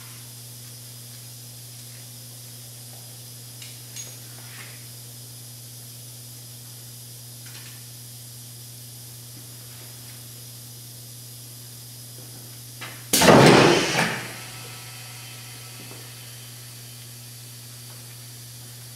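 Powered sheet-metal brake working 16-gauge steel. A steady low hum runs under a few faint metal clicks as the sheet is set in place. About two-thirds of the way through, one loud clanking burst lasts about a second as the machine engages on the sheet, then dies away.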